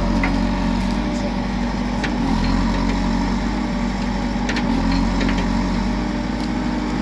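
Heavy construction machine's diesel engine running steadily, its note shifting slightly a few times as it works under changing load.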